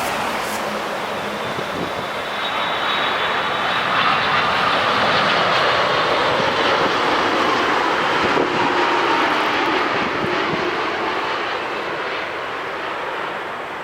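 Boeing 787 Dreamliner's turbofan engines passing on landing approach: a steady jet rush that swells to its loudest about four to eight seconds in, then eases off, with a faint falling whine.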